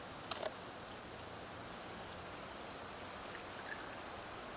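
Water poured from a paper carton into a pint glass packed with ice: a couple of sharp clicks about half a second in, then a faint, even pour.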